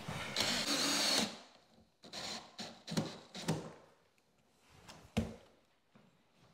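Cordless drill driving a screw to fasten a kitchen cabinet: the motor runs for about a second near the start, then comes several short bursts, and there is a sharp knock about five seconds in.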